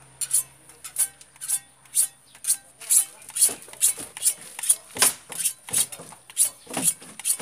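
Hacksaw cutting through blue PVC pipe: a steady run of back-and-forth sawing strokes, about two a second at first and a little quicker after a few seconds.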